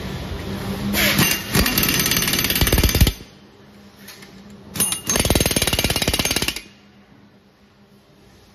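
Impact wrench hammering in two bursts of about two seconds each, driving a chainsaw clutch tight onto the engine's crankshaft.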